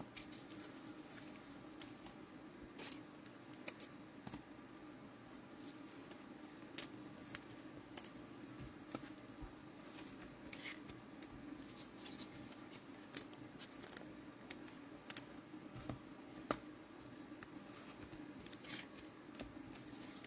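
Faint, scattered clicks and light rustles of trading cards and pack wrappers being handled, over a low steady room hum.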